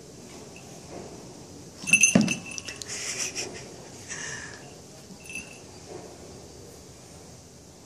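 A cat shifting about inside a plastic bucket: a knock against the plastic with a burst of small metallic jingling about two seconds in, then rustling, and a shorter jingle a few seconds later.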